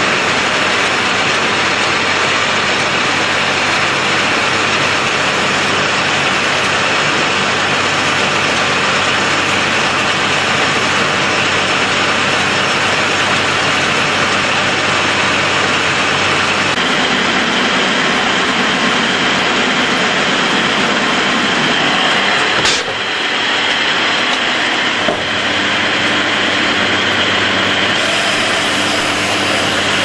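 Corn stalk silage baler running steadily, a dense mechanical noise from its rollers and drive as chopped stalks feed into the baling chamber. There is a short sharp tick and a brief dip about two-thirds of the way through.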